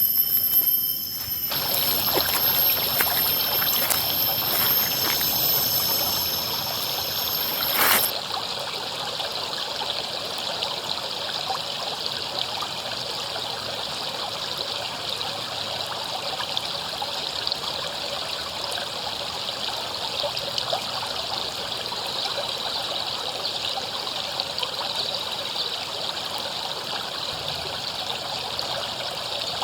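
River water flowing and trickling over rocks, a steady even rush. For the first eight seconds a high steady whine and scattered clicks sit over the water, then cut off sharply.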